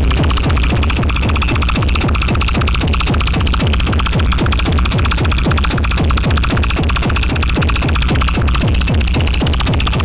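Electronic sound-check music built on a heavy deep bass with a very rapid, relentless pulsing beat, cutting in sharply at the start.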